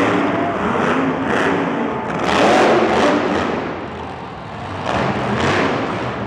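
Grave Digger monster truck's engine revving hard as it drives over dirt mounds. It swells to its loudest about two and a half seconds in, eases off near the middle, then revs up again.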